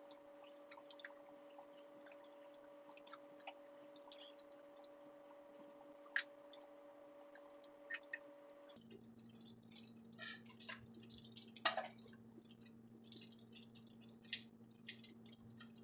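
Faint bubbling and popping of gravy simmering in a cast-iron skillet, with small clicks and squishes as metal tongs turn meatballs in it. The clicks come more often in the second half, with one sharper click about twelve seconds in.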